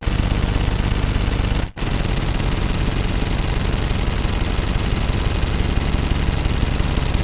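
Sustained, very rapid automatic gunfire, a weapon sound effect, with the strokes coming too fast to count. It breaks off for a moment about one and a half seconds in, then starts again and runs on.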